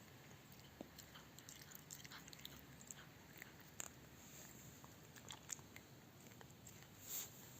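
A cat chewing a snack: faint, irregular small crunching clicks.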